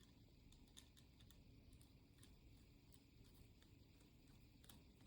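Faint, irregular light metallic clicks as a worm-drive hose clamp is handled and started around a motorcycle fork spring.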